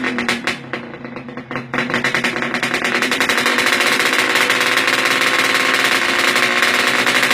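Kawasaki Leo Star motorcycle engine running hard with a rapid stream of exhaust pulses. The revs fall off about half a second in, come back up at about two seconds, and are then held high and steady.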